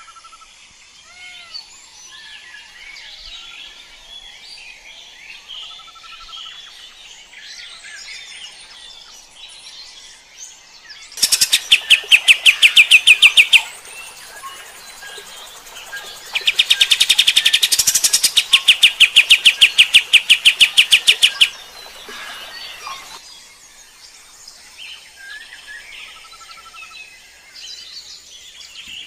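Kapas tembak bulbul singing, its song broken by two loud runs of rapid, evenly repeated notes, about a dozen a second. The first run is short and comes about a third of the way in. The second, longer run comes just past the middle. Softer scattered chirping lies underneath throughout.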